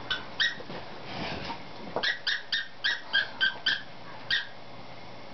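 Squeaky plush dog toy squeaking as a saluki chews it: two short high squeaks, then a quick run of about seven at roughly four a second, then one more.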